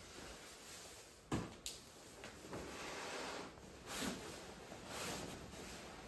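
Two sharp knocks a little over a second in, then several softer rushing, rustling swells, the sound of things being handled and moved about in a small room.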